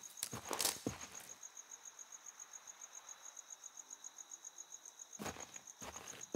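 Cricket chirping in a steady, rapid high trill of about eight pulses a second, the night ambience of the scene. Footsteps sound in the first second and start again about five seconds in.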